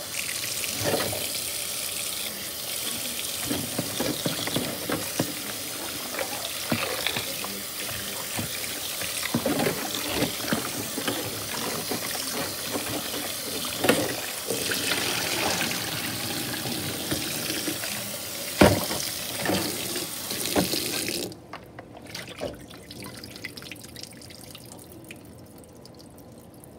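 Kitchen tap running into a plastic bowl of whole parrot fish while hands rub and rinse them, water splashing, with one sharp knock about two-thirds of the way in. The running water stops about 21 seconds in, leaving faint wet handling sounds.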